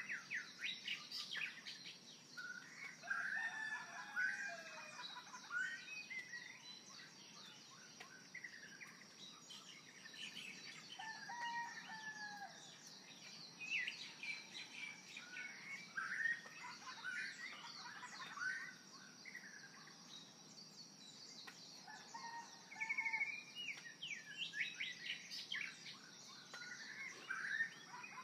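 Birds chirping and singing: many short overlapping calls and gliding notes, over a steady high whine.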